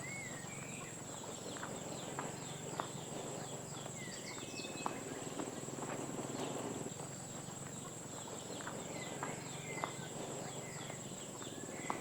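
Tropical forest ambience: a steady high-pitched insect drone with birds giving short wavering chirps now and then, and a few faint ticks.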